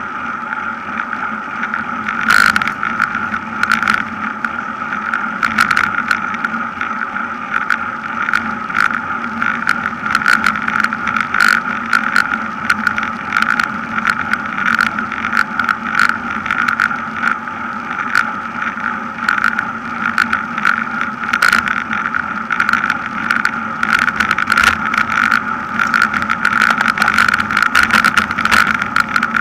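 Wind and road noise rushing over a camera carried on a racing road bike at speed, fluctuating steadily, with frequent sharp clicks and rattles from the bike and mount.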